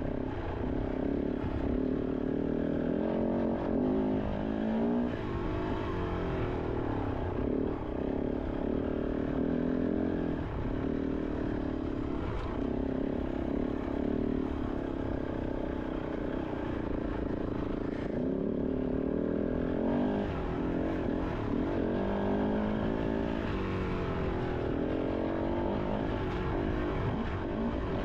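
Kove 450 Rally's single-cylinder four-stroke engine under way off-road, the revs rising and falling over and over as the throttle is worked.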